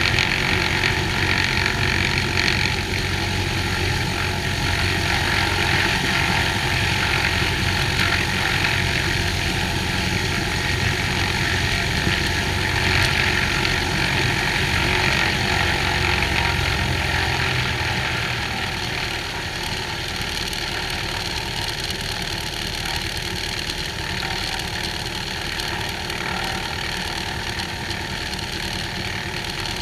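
Cessna 182H's six-cylinder Continental O-470 engine and propeller running steadily; the power eases off and it gets a little quieter about 18 seconds in.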